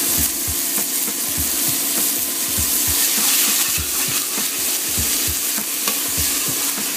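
Chopped onion, ginger and garlic sizzling in hot oil in a pan as the onions sweat, with a steady hiss. A spoon stirs through them about twice a second.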